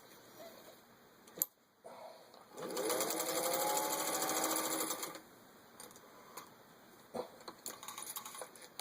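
Singer 201-2 sewing machine stitching through four layers of vinyl upholstery. Its motor speeds up with a rising whine and runs at speed for about two and a half seconds, then stops. Single clicks come before the run and a few more near the end.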